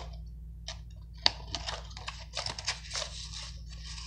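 A folded paper collector's leaflet being unfolded and handled, crinkling and rustling in irregular bursts, with one sharper crackle about a second in.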